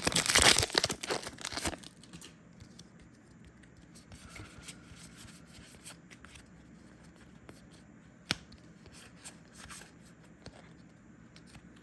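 A trading card booster pack wrapper being torn open: about two seconds of rough, crinkly tearing. Then it goes quiet, with a few faint clicks and one sharper click about eight seconds in.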